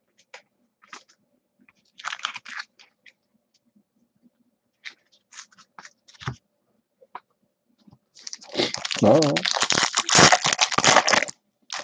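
Foil wrapper of a Topps Chrome baseball card pack torn open and crinkled, a loud crackle lasting about three seconds near the end. Before it come scattered light clicks and rustles of cards being handled.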